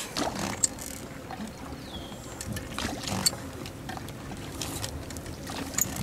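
Small dinghy being rowed: water lapping and splashing at the oars, with a sharp knock from the oars in their rowlocks about every two and a half seconds.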